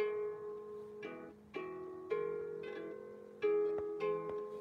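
Out-of-tune harp being plucked slowly: about six notes and two-note chords, each ringing on and fading before the next.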